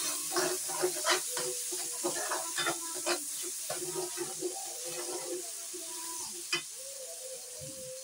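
Metal spatula stirring and scraping in a stainless-steel wok, with repeated sharp clinks against the pan over the faint sizzle of ground spice paste frying.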